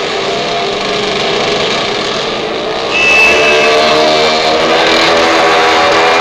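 A small motorcycle engine running as it is ridden around a circus ring, growing louder about three seconds in.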